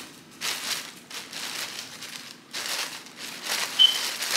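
Clear plastic clothing bag crinkling and rustling in irregular handfuls as a garment is handled inside it, with a sharper crackle near the end.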